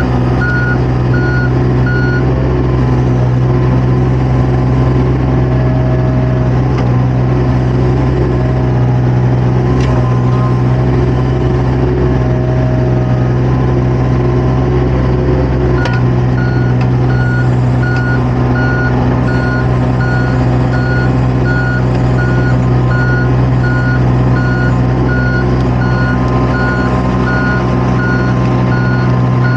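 Diesel engine of a compact construction machine running steadily under the operator, with a backup alarm beeping at about two beeps a second; the beeping stops about two seconds in and starts again about halfway through.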